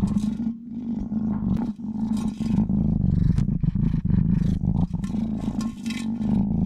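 A cat purring loudly right at the microphone: a steady low rumble throughout, with short scratchy rustles of fur and paws against the glass jar.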